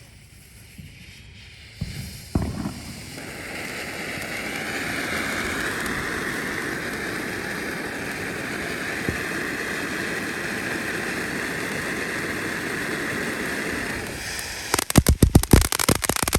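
Snow Cone Junior firework fountain burning: after two short knocks near the start, a steady rushing hiss of spraying sparks builds up and holds for about ten seconds, then turns near the end into a dense run of sharp crackling pops.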